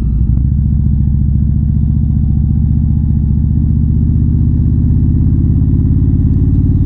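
Indian Super Chief Limited's V-twin engine idling steadily through a Rush aftermarket exhaust, with an even, loping beat that does not rise or fall.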